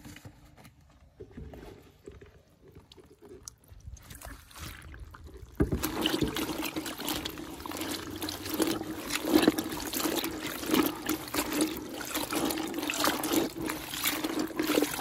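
Wet, dye-soaked cotton fabric being pulled and lifted out of a plastic bucket, with liquid sloshing and dripping. It starts abruptly about five and a half seconds in and goes on busily with small wet clicks and splashes.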